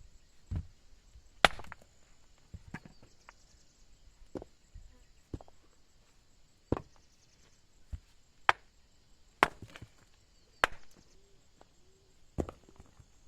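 Wood being chopped by hand: about a dozen sharp, separate blows at uneven intervals.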